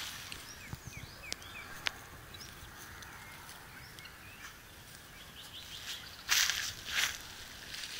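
Small birds chirping faintly in an outdoor background, then two loud swishing steps through dry grass about six and seven seconds in.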